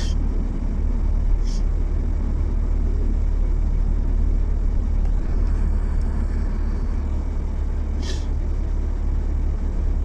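Steady low road and engine rumble of a moving car, heard from inside the cabin, with two brief high hissing sounds about a second and a half in and again near the end.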